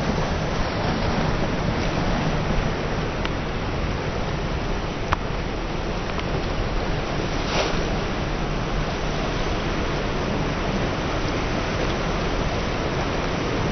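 Sea surf washing steadily over open water, mixed with a low wind rumble on the microphone. A single sharp click comes about five seconds in.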